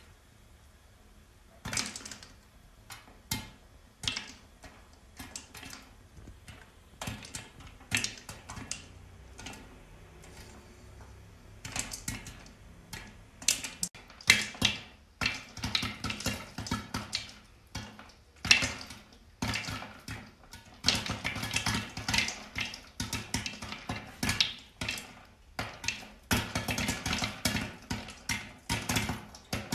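Popcorn kernels popping in hot oil in a pan under a glass lid. A few scattered pops come at first, then more and more from about halfway through, building to rapid, near-continuous popping near the end.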